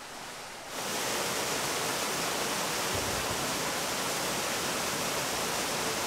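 Small woodland waterfall pouring over rocks into a pool: a steady rush of water that steps up louder less than a second in and then holds even.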